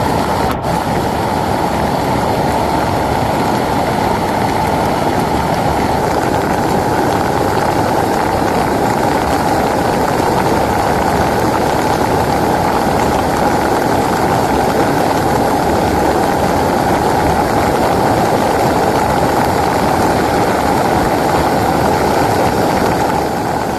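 Heavy rain falling, a loud, steady, unbroken rush.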